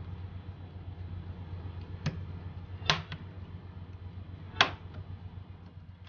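Plastic snap-fit clips of a laptop's bottom panel clicking free as the panel is pried open. There are three sharp clicks, a small one about two seconds in and two louder ones about three and four and a half seconds in, over a low steady hum.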